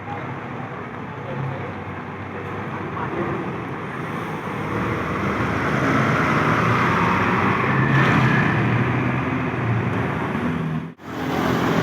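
Road traffic with a heavy vehicle passing: engine and tyre noise swells to a peak about seven or eight seconds in, then eases. The sound drops out abruptly for a moment near the end.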